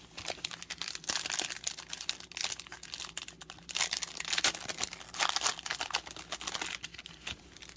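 Plastic trading-card pack wrapper being torn open and crinkled in the hands, with dense, irregular crackling.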